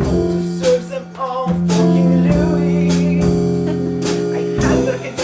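Live stage-musical accompaniment on an electric keyboard: held chords with fresh notes struck over them. A singing voice joins in briefly at times.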